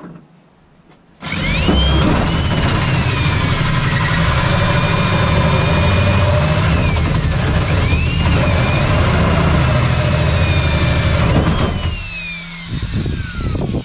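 Power drill with a hole saw cutting a hole through a Series III Land Rover's front wing. It starts about a second in and runs loud and steady, with whines that rise and fall as the saw bites. Near the end the drill stops and its whine falls away as it spins down.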